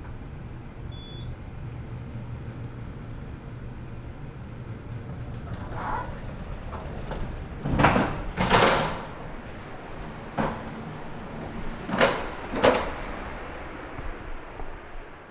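Elevator running with a steady low hum, then its doors sliding: two loud door movements about eight seconds in and two more about twelve seconds in. A short faint beep sounds about a second in.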